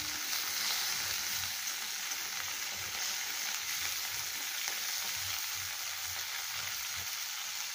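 Cauliflower florets sizzling in hot mustard oil in an iron kadai, a steady hiss, with soft scrapes and knocks as a plastic spatula turns them.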